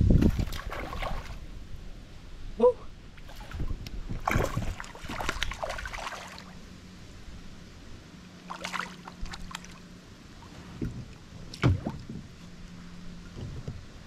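Water splashing and sloshing beside a kayak as a hooked fish is fought close to the boat, with a few sharp knocks at irregular times.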